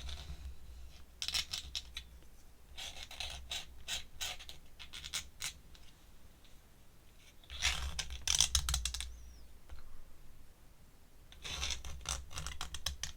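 Pen scratching on paper in four bursts of quick strokes, with pauses between them, as ink lines are drawn.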